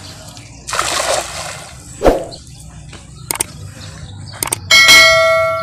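A cast net lands on the pond water with a splash about a second in, followed by a few small thuds and clicks as it is drawn in. Near the end a mouse click and a bright, ringing bell chime from a subscribe-button sound effect, the loudest sound, fade out slowly.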